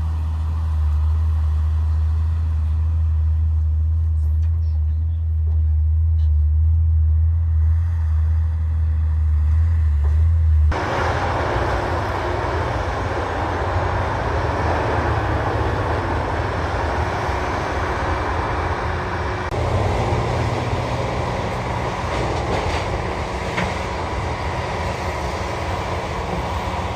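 Heavy diesel construction machinery running: a deep, steady engine rumble for about the first ten seconds, then a sudden switch to a louder, fuller engine noise that runs on with another abrupt change about two-thirds of the way through.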